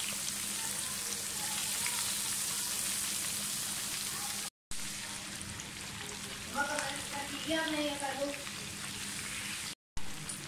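Batter-coated chicken pieces deep-frying in hot oil in a wide pan: a steady, dense sizzle of bubbling oil. It drops out briefly twice, about four and a half seconds in and near the end.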